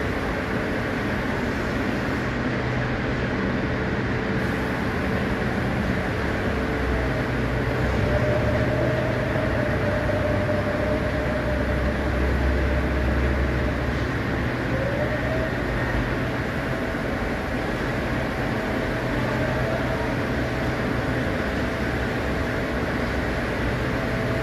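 Steady mechanical rumble with a low hum, unbroken throughout.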